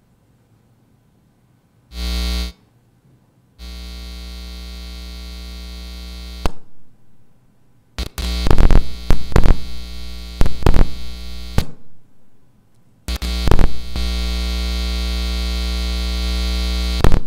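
Loud electrical buzz from a sound system, a steady hum-like drone that cuts in and out in several blocks of a few seconds each. Through the middle it breaks into sharp crackles and pops.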